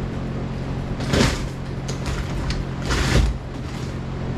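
An old plywood boat floor being wrenched up by hand: wood cracking and scraping loose in two loud bursts, about a second in and again around three seconds, over a steady low hum.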